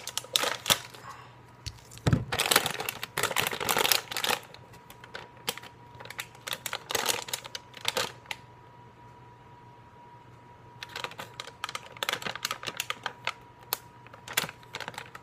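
Plastic-and-paper wrapper of a packet of cookie dough crinkling and tearing as it is peeled open by hand, in irregular crackly spells with a quiet stretch of a few seconds past the middle. A dull knock about two seconds in.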